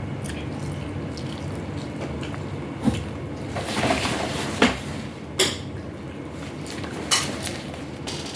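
Eating at a meal of chicken wings and rice: four sharp clinks of cutlery against a plate, and a short wet, noisy stretch of eating a little before halfway through. A steady low hum runs underneath.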